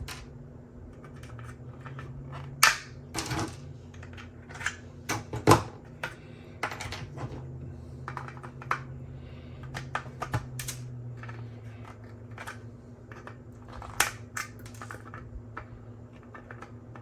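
Irregular small clicks and snaps of 3D-printed plastic support material being picked and broken off a printed helmet, with a few louder cracks, over a steady low hum.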